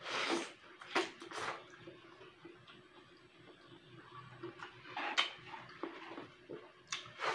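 Close-up eating sounds of a mouthful of rice and fried fish eaten by hand: chewing with several sharp lip smacks, the loudest as the food goes in at the start and others at about a second, one and a half seconds, five seconds and near the end. A faint steady hum runs underneath.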